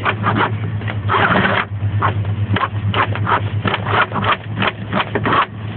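Cordless drill working at a stuck screw, its battery running low, with irregular clicking and scraping over a steady low hum and a denser scrape about a second in.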